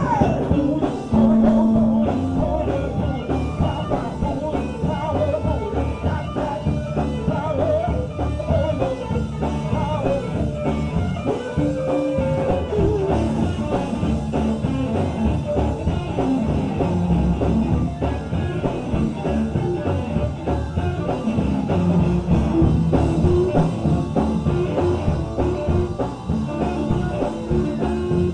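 Live gospel band playing an upbeat number, with guitar and a driving rhythm.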